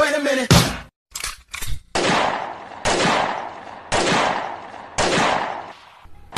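A series of sharp, gunshot-like bangs, the later ones about one a second, each fading away over most of a second. A brief pitched sound opens it.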